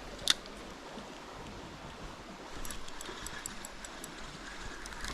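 Steady rush of stream water, with one sharp click about a third of a second in and a quick run of light ticks around three seconds in.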